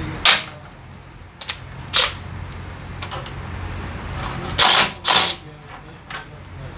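Cordless power driver with a 10 mm socket spinning bolts on a motorcycle engine's sprocket cover, in four short bursts, the last two close together and loudest, with a few light clicks of tools between them over a steady low hum.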